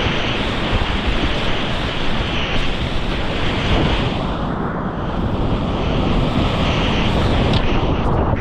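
Whitewater rapids of a river in high flood rushing loudly and steadily.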